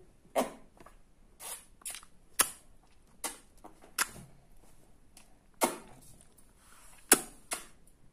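A baby's hands slapping, about nine short sharp slaps at irregular intervals.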